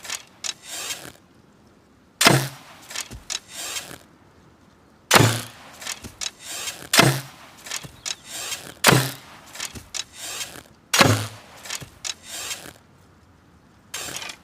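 Hunting bow shot over and over, about six times, roughly every two seconds: each a sharp snap with a brief low thrum, followed by a few lighter clicks and rattles.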